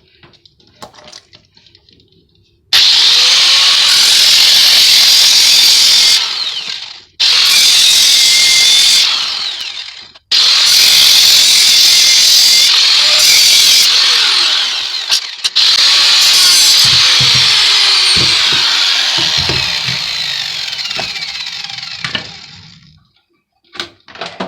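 Power cutting tool cutting through the steel casing of an electric motor to free its copper windings: three long runs of high-pitched cutting noise with short breaks between them, the last one fading as the tool winds down near the end.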